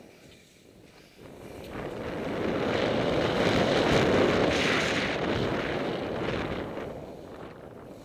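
Wind rushing over the camera microphone as a skier descends, with skis sliding through the snow. It swells about a second in, is loudest in the middle and eases near the end.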